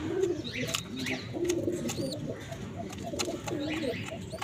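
Domestic pigeons cooing: a run of low, warbling coos one after another, with short high chirps over them.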